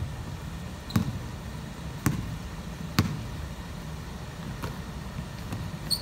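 A basketball bouncing on a wooden gym floor as it is dribbled: three sharp thuds about a second apart, then a few fainter ones.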